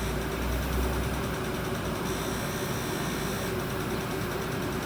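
Steady, unchanging hum and hiss of running machinery or airflow.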